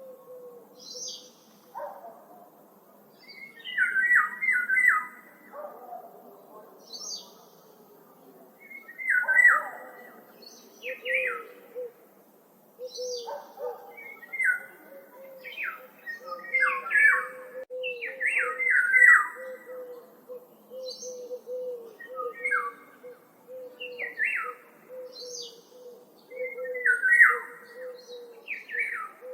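Several woodland songbirds singing and calling, with short chirping phrases repeated every second or two, some higher and thinner than others. A low, steady, wavering tone runs faintly underneath and grows stronger about halfway through.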